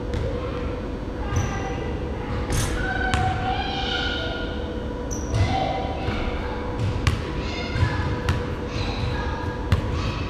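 Basketball bouncing on a hardwood gym floor: irregular thuds that echo around a large indoor gymnasium.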